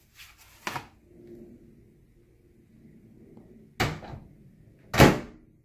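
A light knock, then two heavier thuds about a second apart near the end, the last the loudest.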